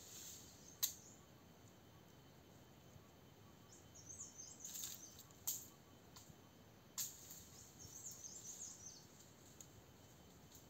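Quiet forest background with a small bird twittering in two short, high phrases, about four and eight seconds in. Three sharp clicks cut through, the loudest just under a second in.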